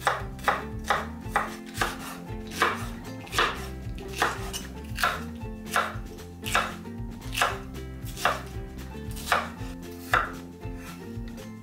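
Kitchen knife chopping vegetables on a wooden cutting board: onion, then green pepper and cucumber. Each cut ends in a sharp knock of the blade on the board, roughly one a second, with lighter cuts between.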